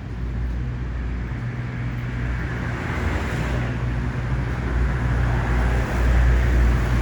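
Outdoor background noise: a steady low rumble with a hiss that builds from about two seconds in and grows louder.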